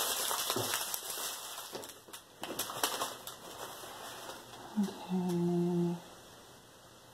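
Plastic packets of diamond-painting drills crinkling and rustling as they are handled, with a few sharp clicks. About five seconds in comes a short hummed "hmm" from a woman, held on one pitch for under a second.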